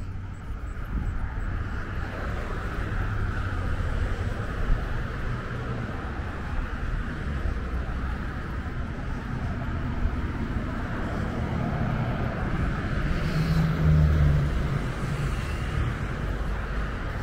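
Street traffic going by: a steady rumble and hiss of cars passing, with one vehicle passing louder, its low engine note rising and fading about three-quarters of the way in.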